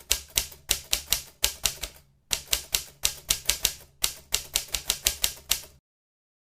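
Typing on a laptop keyboard: a quick, even run of key clicks, about five a second, in three runs with two short breaks, stopping near the end.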